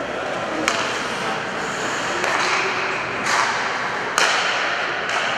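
Ice hockey play: three sharp cracks of sticks and puck striking, over a steady background hiss of the rink.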